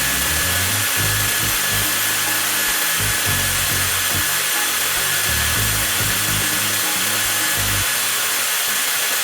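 TOTAL 20V cordless angle grinder motor running steadily with no load, a constant whirring with a thin high whine, left on to run its 4 Ah battery down.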